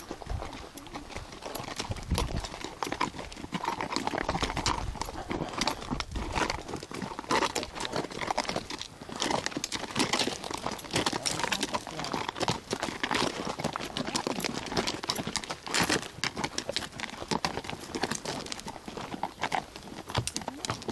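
Horse hooves clip-clopping at a walk: a steady run of irregular knocks.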